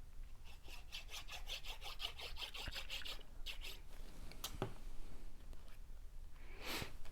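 Rapid back-and-forth rubbing on cardstock, about eight strokes a second for a couple of seconds, then a few more strokes, a light tap and a brief papery swish near the end.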